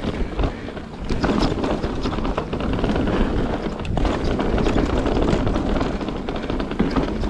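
Mountain bike ridden over rocks and roots: steady tyre noise with many small knocks and rattles from the bike, under wind rumble on the microphone.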